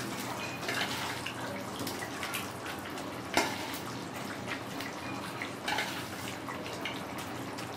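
Prawn curry gravy bubbling in a pan on the stove, a steady simmer full of small pops and spluttering, with a sharper click about three and a half seconds in.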